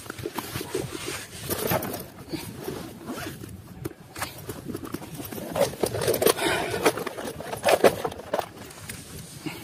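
Backpack zipper being pulled open in a series of short strokes, loudest about six to eight seconds in, with a plastic tackle box handled as it comes out near the end.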